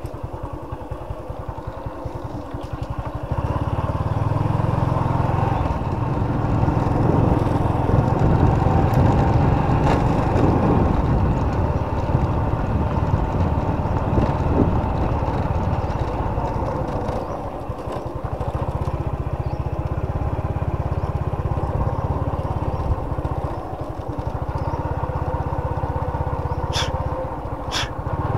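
Small motorcycle engine running steadily while riding. It picks up about three seconds in and eases off briefly twice.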